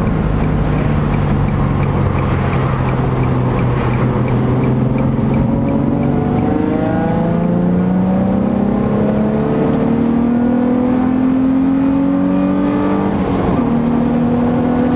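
Nissan 350Z's VQ35DE V6 through a Greddy exhaust (Greddy SP rear muffler, stock mid-pipe, Z1 stainless Y-pipe, Manzo test pipes), heard from inside the cabin with the windows up. It cruises steadily, then pulls with revs rising gradually for about seven seconds, before the pitch drops sharply near the end and steadies.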